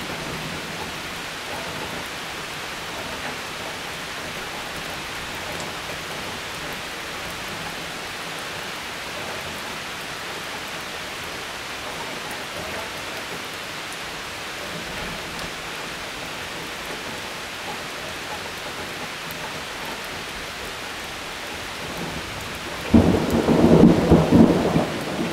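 Steady rain during a thunderstorm. Near the end a loud thunderclap breaks in and rumbles on for a couple of seconds.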